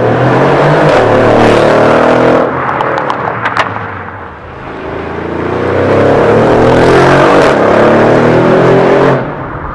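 Mercedes-AMG S63 Coupé (C217) twin-turbo V8 through an aftermarket MEC Design stainless steel exhaust, accelerating hard past twice, its note rising as it pulls. The first pass is loudest about a second and a half in and is followed by a few sharp exhaust pops as it lifts off; the second builds from about four and a half seconds and stays loud until it drops off suddenly near the end.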